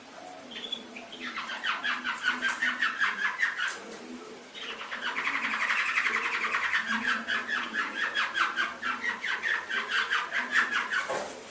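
Domestic canary singing: two long phrases of rapid trilled notes, the second starting about four and a half seconds in and running much longer.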